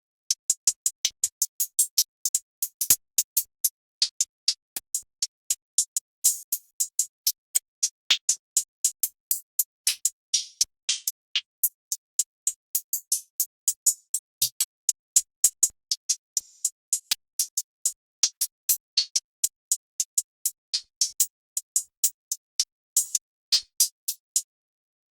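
Trap drum-kit one-shot samples, hi-hats and high percussion, played one after another: short crisp ticks and hits about three a second, a few ringing a little longer like open hats.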